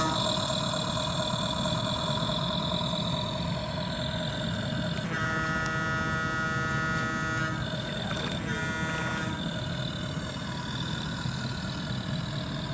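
An RC model tugboat's DIY Arduino sound module playing a recorded engine running through its onboard speaker, steady throughout. A ship's horn from the same module sounds for about two seconds about five seconds in, then once more, shorter, about a second later.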